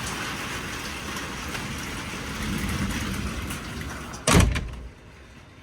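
Steady storm wind noise, then a vehicle door slams shut a little over four seconds in, after which the wind noise is much quieter.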